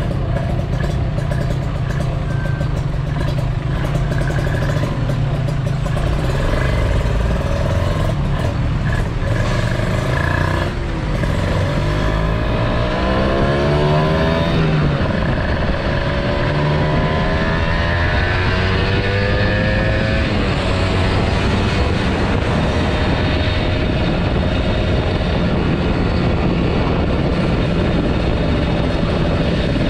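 Kawasaki Ninja motorcycle engine running while riding. Around the middle the engine note climbs twice, dropping back in between, as it accelerates.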